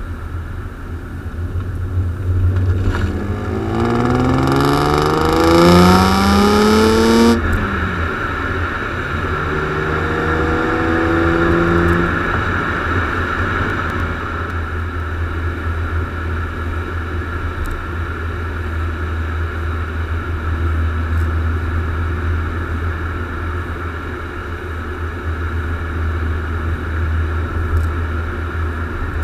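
BMW E36 M3's straight-six engine heard at its twin exhaust tips: it revs up hard from about three seconds in and cuts off sharply a few seconds later, then climbs again more gently before settling into a steady cruising drone over a constant low rumble.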